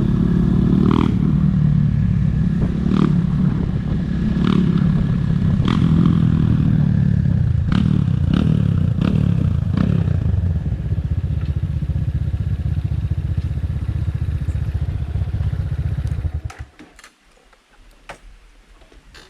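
Motorcycle engine running while riding, with a string of sharp clattering knocks over the first half. The engine noise stops suddenly near the end.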